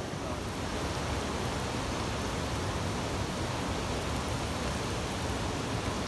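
Steady rush of a waterfall and river: an even, unbroken roar of falling and running water.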